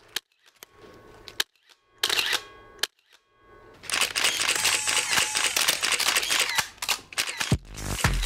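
Camera shutters clicking: a few single clicks, then a dense, rapid run of many shutters firing at once. Electronic dance music with a heavy bass beat starts near the end.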